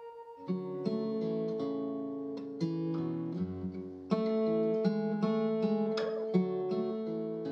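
Background music: acoustic guitar picking and strumming a melody, with a fresh, louder phrase starting about four seconds in.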